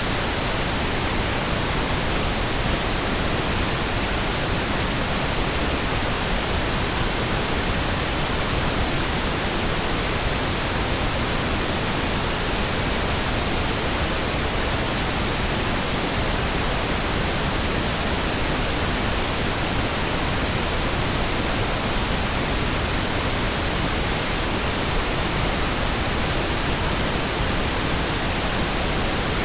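Pink noise: an even, continuous hiss spread across deep and high pitches alike, holding at one level without change.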